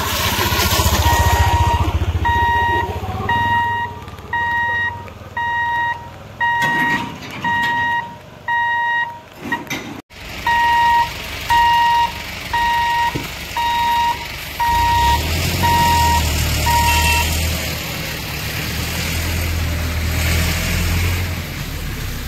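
Railway level-crossing warning beeper sounding a steady single-tone beep a little more than once a second as the boom barrier lowers. An auto-rickshaw's engine passes at the start, and a truck engine idles low underneath near the end.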